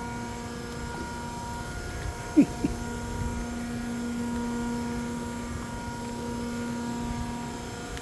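Steady electric hum of the lock's gate machinery running, a single low tone with a ladder of overtones that strengthens about three seconds in. About two and a half seconds in come two short squeaks falling in pitch, the loudest sounds here.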